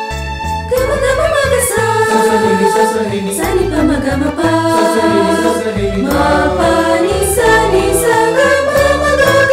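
Mixed four-part choir of sopranos, altos, tenors and basses singing a Tamil Christmas carol in harmony over instrumental accompaniment. The voices come in just under a second in, after a short instrumental passage.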